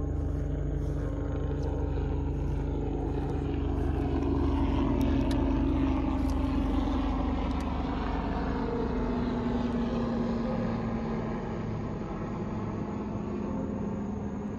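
A passing engine: a steady hum that swells about halfway through and then slowly fades, its pitch sinking slightly as it goes.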